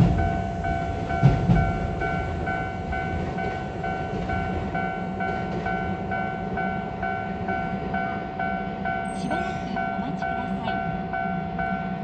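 Japanese level-crossing alarm ringing steadily, about two rings a second. In the first two seconds the wheels of a Keisei 3000 series train thump over rail joints as the train passes.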